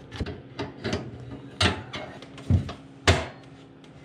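Clicks, knocks and clunks from a Buddy portable propane heater being handled on a wooden floor, with three louder thumps in the second half.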